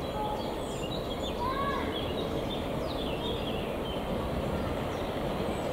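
Songbirds chirping over a steady low rushing background from the steam locomotive Hoya drawing closer at a distance.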